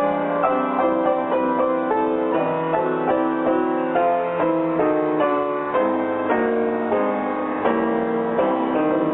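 Piano music: notes and chords struck one after another, changing about every half second.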